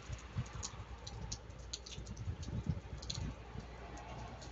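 Rain: scattered raindrops ticking irregularly on nearby surfaces over a faint steady hiss, with a few dull low thumps about two and a half seconds in.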